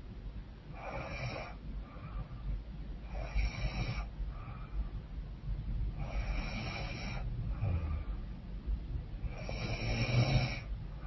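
A woman snoring in her sleep through a blocked, runny nose: four strong breathy snores about three seconds apart, with fainter breaths between them over a low rumble.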